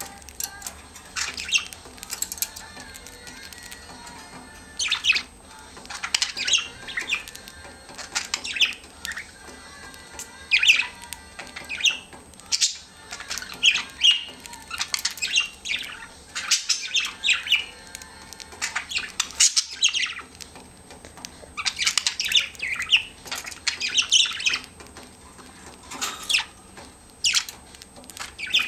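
Budgerigars giving short squawks and chirps in irregular quick clusters.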